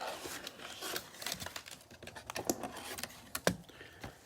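Plastic wrap crinkling and tearing as a sealed trading-card box is opened, with cardboard and foil packs rustling and a sharp click about three and a half seconds in.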